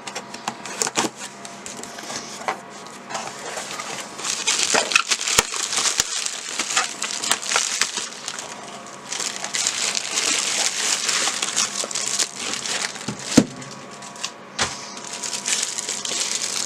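Product packaging being handled and unwrapped: crinkling, crackling plastic and cardboard with scattered sharp clicks, louder in two stretches near the middle.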